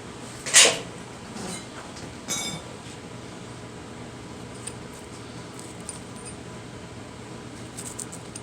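A sharp metallic knock about half a second in, followed by two lighter clinking rattles, over a steady low hum.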